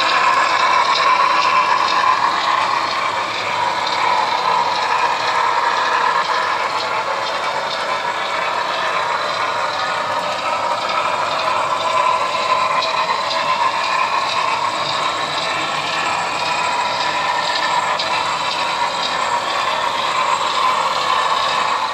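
Long HO-scale model freight train rolling on the layout: a steady, fine clatter of many small model-car wheels on the rails, continuous throughout.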